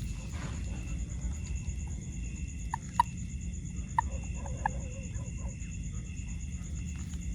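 Steady high insect trilling over a low rumble, with a few short sharp calls between about three and five seconds in.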